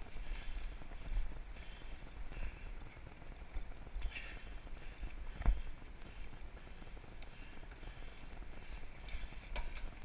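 Mountain bike rolling over a leaf-strewn dirt trail: a steady low rumble of the tyres and frame, with wind buffeting the microphone. A few small rattles and clicks, and one sharp knock about five and a half seconds in as the bike hits a bump.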